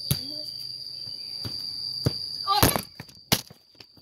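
A football is kicked barefoot on a concrete yard, giving sharp knocks about every second or half second, over a steady high insect drone. Near the end comes a louder jumble of knocks and a short shout, then one sharp clack as the phone camera is knocked over.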